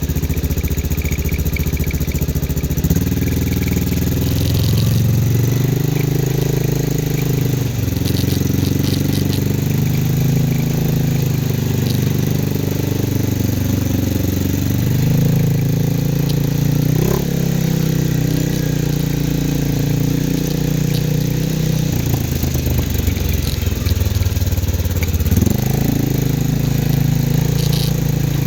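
CFMoto 500 ATV's single-cylinder engine running with the throttle changing, its pitch stepping up and down every few seconds.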